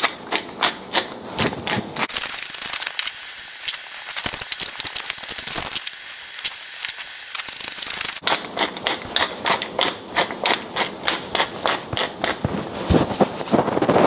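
Wooden pepper mill grinding peppercorns: a crackling train of sharp clicks at about four a second, turning into a denser, steadier rasp for several seconds in the middle, then back to clicks.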